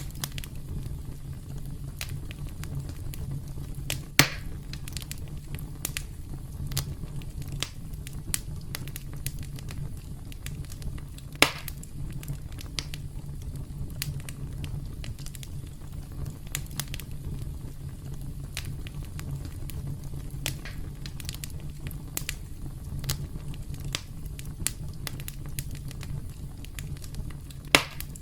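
Campfire crackling steadily with many small scattered pops over a low, steady rumble, and three louder snaps spread through it.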